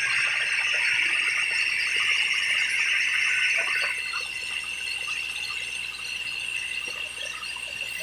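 Band sawmill blade cutting through a log as it is pushed along on the carriage: a steady, high-pitched rushing noise that eases slightly about halfway through.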